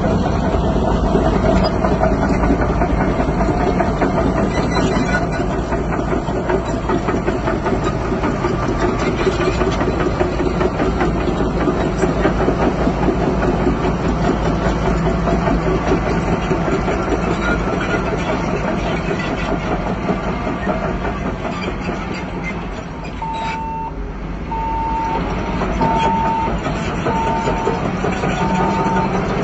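Bulldozer's diesel engine running steadily with heavy mechanical clatter. Near the end a reversing alarm starts beeping about once a second as a machine backs up.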